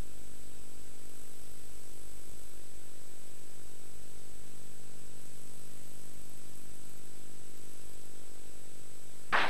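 Steady hiss and electrical mains hum with a thin, high, steady tone: the background noise of an old home-video tape recording. A louder sound cuts in suddenly at the very end.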